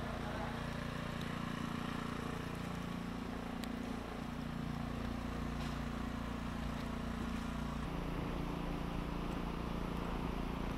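An engine running steadily, a low hum whose pitch shifts slightly about eight seconds in.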